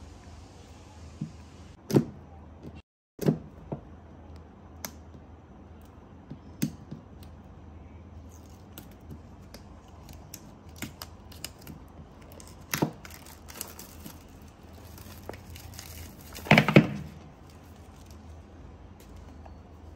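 Packaging of a boxed laptop being handled and unpacked: scattered taps and knocks on cardboard, with paper and plastic rustling. A louder burst of rustling and scraping comes about three quarters of the way through.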